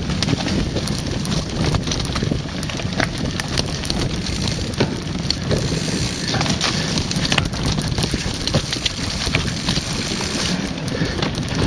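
Wind buffeting the microphone over a steady rush, with many small clicks and knocks as a mountain bike rattles down a rough dirt and rock descent.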